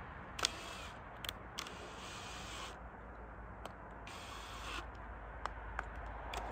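Ryobi cordless drill driving screws into the track in two short runs, the first about a second long and the second shorter, with a few sharp metallic clicks between.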